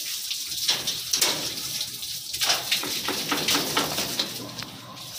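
Water spraying from a garden hose and splashing onto the dog and the kennel cage, in uneven gushes; the spray eases off near the end.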